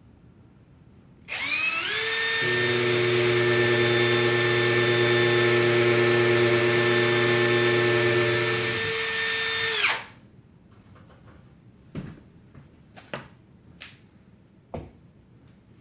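Power drill spinning up about a second in and running steadily for about eight seconds while boring a handle hole in a wooden cabinet door, with a deeper drone through the middle of the run, then winding down and stopping. A few light knocks follow near the end.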